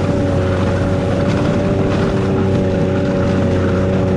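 Ski-Doo Expedition snowmobile engine running at a steady speed while riding along a trail.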